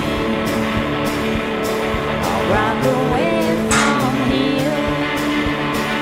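Background music: a song with a singing voice over held instrumental notes.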